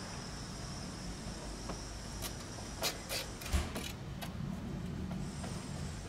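A screwdriver working at the metal housing and control board of an air conditioner's outdoor unit: a cluster of sharp clicks and knocks a couple of seconds in, the loudest with a dull thump, over a steady low hum.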